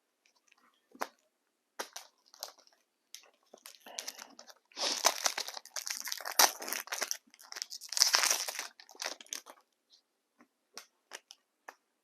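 A trading-card pack wrapper being torn open and crumpled, with loud crinkling and crackling in two stretches in the middle and a few light clicks and rustles of handling before and after.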